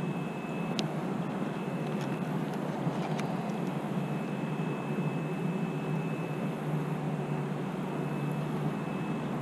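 Steady low rumble of road traffic, with a thin high whine running through it and a few faint clicks.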